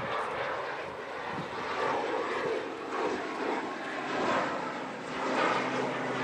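Airbus A380's Rolls-Royce Trent 900 turbofans at taxi power as the jet rolls toward the listener: a steady jet rush that swells and eases in waves and grows louder toward the end.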